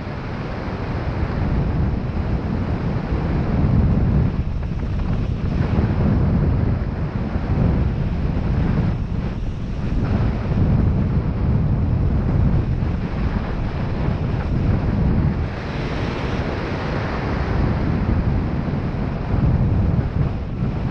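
Wind buffeting the microphone: a continuous low rumble that swells and eases with the gusts.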